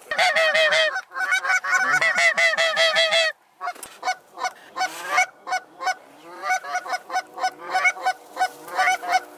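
Geese honking: a dense run of many overlapping high calls, broken off suddenly a little over three seconds in, then a steadier string of separate honks, a few a second.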